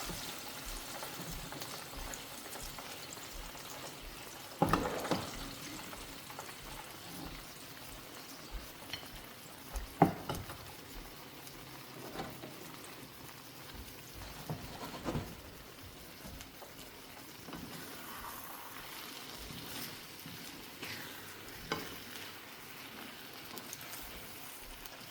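Chicken frying in oil with a steady sizzle, and now and then a sharp click of a utensil knocking against the pan, four times most clearly.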